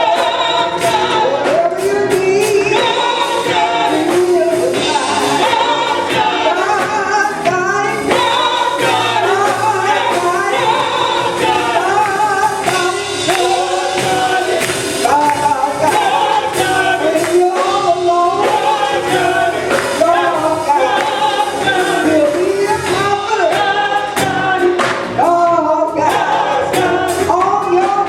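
Church choir singing a gospel song, the voices carrying a continuous melody.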